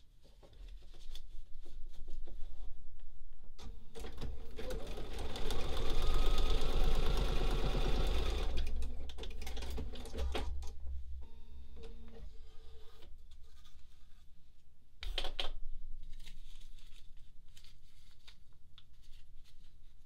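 Bernina sewing machine stitching a seam through a paper foundation and fabric. It starts about a second in, speeds up to its fastest and loudest run from about four to eight seconds, then carries on in slower stitches with one more short fast run near fifteen seconds.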